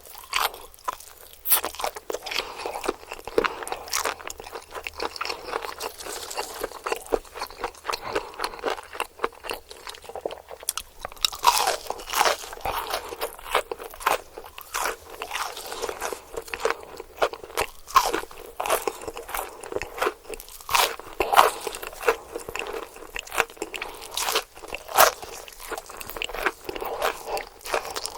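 Biting and chewing crunchy KFC fried chicken, with many irregular crisp crackles of the breading.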